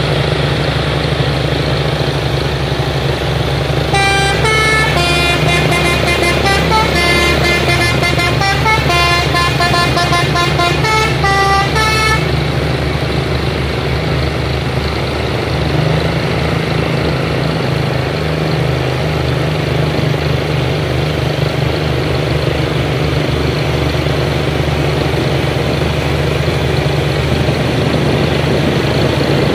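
Hino heavy trucks' diesel engines running steadily under load on a steep climb. From about four seconds in to about twelve seconds in, a multi-tone musical horn plays a short stepping tune over the engines.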